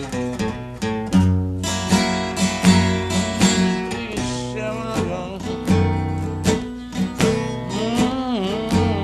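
Acoustic blues guitar instrumental: picked notes over a repeating bass line, with notes that bend in pitch near the end.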